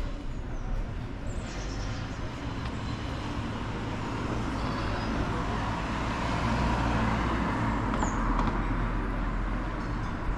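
City street traffic noise, with a motor vehicle passing by that grows louder and is loudest about two-thirds of the way through, then fades.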